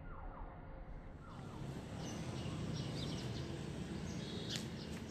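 Outdoor street ambience with a low steady hum. There are a few short whistle-like calls sliding down in pitch in the first second, then scattered high chirps from about two seconds in.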